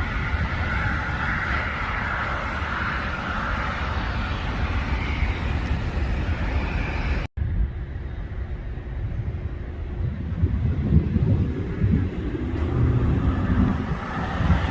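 Jet airliner passing low overhead on its landing approach, a steady loud roar. About halfway through, the sound cuts out for an instant, then a lower rumble follows.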